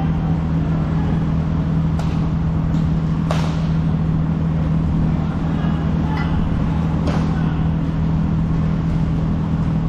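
Steady low hum filling the hockey rink, with a few sharp clacks of sticks and puck from play: about two seconds in, a louder one a second later, and another near seven seconds.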